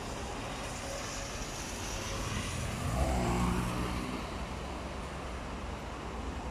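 Passing traffic on a rain-soaked street: a steady hiss of tyres on wet asphalt, with a passing vehicle's engine note rising in pitch and growing louder about three seconds in.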